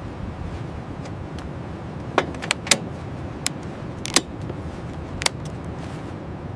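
A steady low rumble, like machinery or engine-room noise, with a scattering of sharp metallic clinks and clicks in the middle of the stretch.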